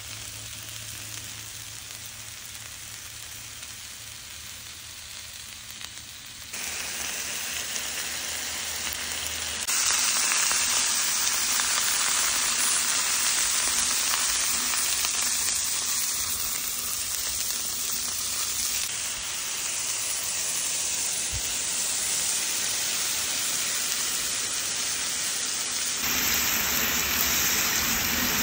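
Food sizzling on a hot flat-top griddle, a steady frying hiss. It jumps louder about six and a half seconds in and again near ten seconds, as the clips change.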